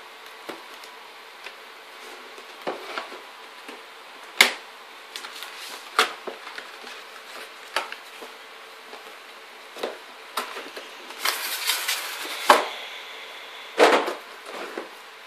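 Scattered clicks, taps and knocks from cardboard boxes and packaging being handled on a wooden desk, with a stretch of rustling about eleven seconds in and the loudest knocks near the end. A faint steady hum runs underneath.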